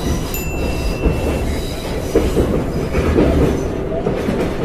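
Metro train running, heard from inside the carriage: a steady low rumble, with thin high wheel squeals in the first second or so.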